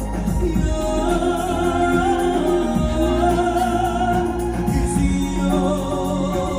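Music with singing: a voice holding long, slightly wavering notes over a steady accompaniment.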